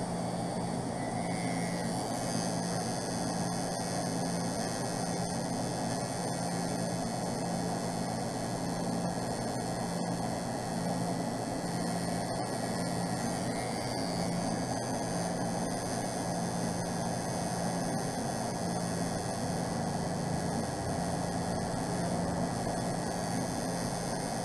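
Electric tattoo machine buzzing steadily, a low hum that dips briefly now and then as the needle works along the stencil.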